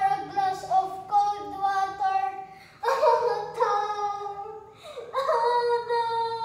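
A high voice singing slow, long-held notes, one phrase after another.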